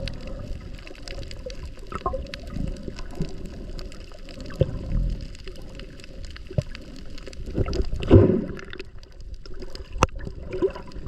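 Water heard through a waterproof action-camera housing: muffled sloshing and gurgling with scattered clicks. A louder gurgling surge comes about eight seconds in.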